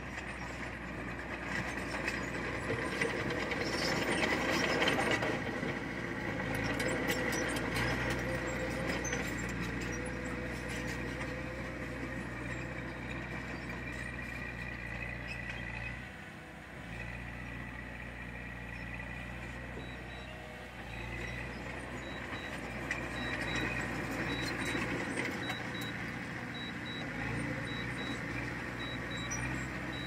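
Komatsu bulldozer's diesel engine running steadily under work, with rattling and clanking from the machine. It is busiest in the first several seconds and drops briefly about halfway through. From about two-thirds of the way in, a faint, evenly repeated high beeping like a reversing alarm sounds over it.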